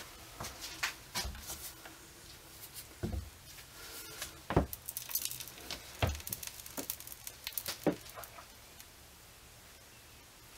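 Gloved hands setting a soap log onto a wooden wire soap cutter and shifting it into place: scattered light clicks and rubbing, with about four sharper knocks of the log and board against the wooden frame and table, then quiet near the end.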